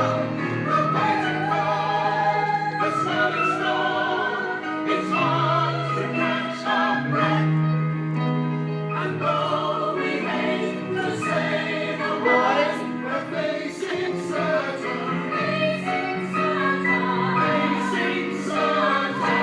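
A chorus of voices singing a musical-theatre ensemble number, long held notes with a wide vibrato over sustained low notes; the music stops right at the end.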